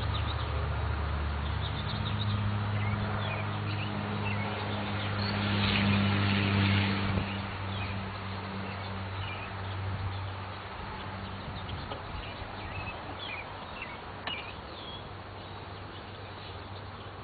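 A low, steady engine hum that fades away over the second half, with scattered bird chirps.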